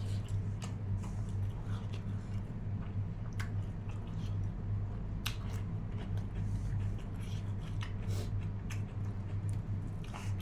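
A person chewing and biting into cooked mutton, with scattered short wet clicks and mouth smacks, over a steady low hum.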